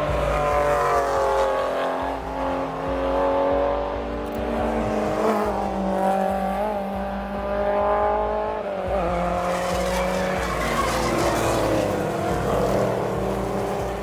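Race cars passing one after another at speed, their engine notes rising and falling in pitch as each comes and goes.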